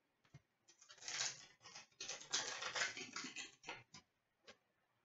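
Hockey trading cards shuffled and slid through the hands, a soft papery rustling in two runs, then a few light clicks as the cards are tapped and set down near the end.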